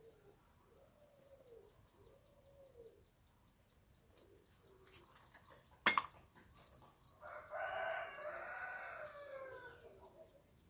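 A rooster crows once, about seven seconds in, a call of two to three seconds that falls away at the end. Just before it comes a single sharp click.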